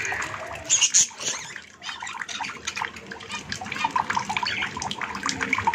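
Water dripping and trickling from a pipe-fed shower onto a pet bird bathing under it, a dense patter of small drips. A few short high bird chirps sound about a second in.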